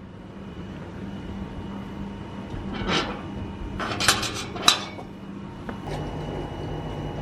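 A few short clattering clicks and knocks, about three seconds in and again a second later, over low background noise; a low steady hum sets in near the end.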